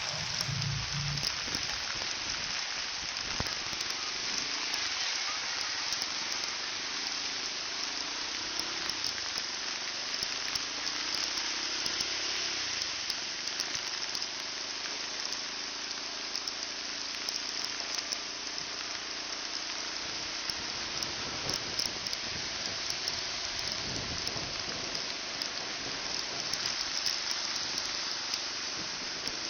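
Steady rush of heavy rain and riding wind over the microphone on a moving motorcycle, with the GPX 150GR's engine faintly underneath, its pitch rising and falling.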